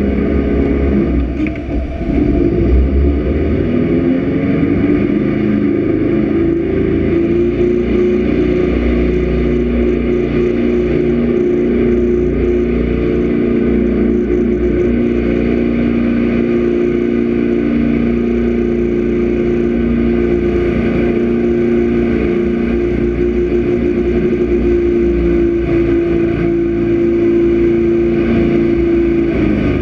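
Jet boat engine running under way at speed. It dips briefly about two seconds in, then revs back up with a rising pitch and holds a steady drone.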